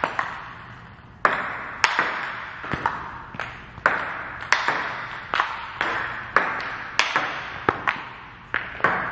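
Table tennis smashes: sharp clicks of the celluloid-type ball off a Butterfly Dignics-rubbered bat and off the table, coming every half second or so, each ringing on briefly in a large hall.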